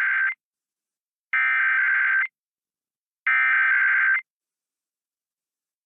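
Emergency Alert System SAME header: bursts of rapid digital data tones, the first ending about a third of a second in, then two more of about a second each, a second apart. They are the coded header that opens an EAS test message.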